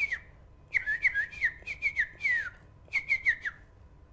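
A person imitating a sparrow's chirping by whistling with the mouth: quick runs of short, high cheeps and downward-sliding chirps, in three groups with short pauses between them.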